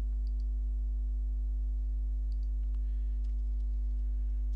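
Steady electrical mains hum with a stack of overtones, and a few faint computer-keyboard clicks as slashes are typed.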